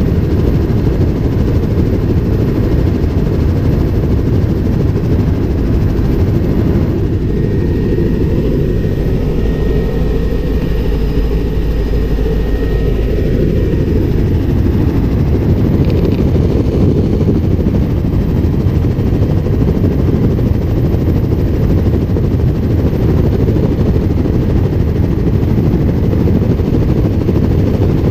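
Helicopter in flight, heard on board: steady, loud rotor and engine noise mixed with wind rush, heaviest in the low end.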